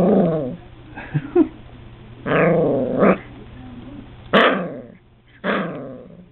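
Puppy growling in a series of short, pitched grumbles, about five of them, each under a second long with short pauses between.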